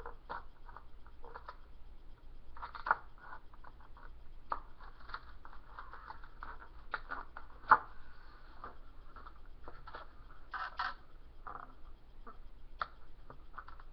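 Scissors cutting through a foam egg carton: irregular squeaky crunching and crackling of the foam, with two sharper snaps at about three and eight seconds in.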